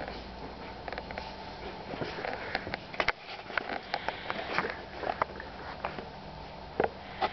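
Two Alaskan Malamute puppies sniffing and snuffling at each other in play, many short irregular sniffs and small clicks.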